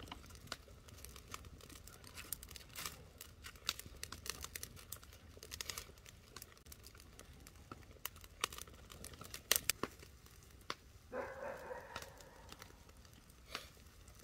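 Irregular crackles and rustling at a low level, with a brief louder rustle about eleven seconds in.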